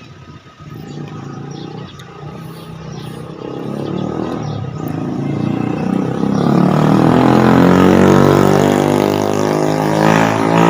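A motor vehicle driving past on the road, its engine growing steadily louder as it approaches and drops in pitch as it goes by near the end.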